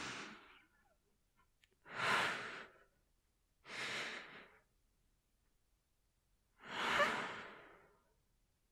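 A woman breathing deeply and sighing: four slow, breathy swells about two seconds apart, the last the longest.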